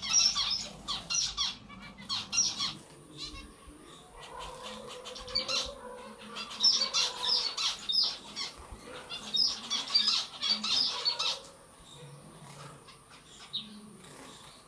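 A group of caged zebra finches calling: bursts of many short, high chirps. The chirping thins out around three to five seconds in and again near the end.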